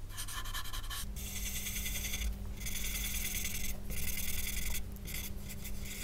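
Paper blending stump rubbing graphite shading into drawing paper, a soft scratchy hiss of back-and-forth strokes coming in runs with short pauses between them.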